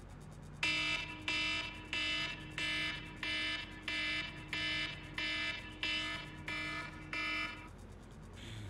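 iPhone alarm ringtone sounding: a stacked electronic tone pulsing about eleven times, roughly one beep every two-thirds of a second. It cuts off about a second before the end as the alarm is stopped.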